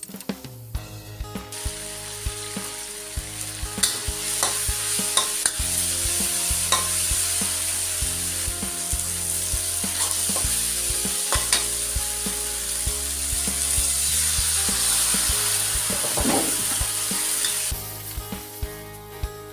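Food sizzling loudly in a hot pan while it is stir-fried, with a spatula clicking and scraping against the metal. The sizzle starts about a second and a half in and stops sharply near the end.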